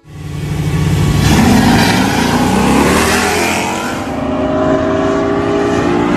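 A vehicle engine revving hard as it accelerates, loud, with its pitch slowly climbing in the second half.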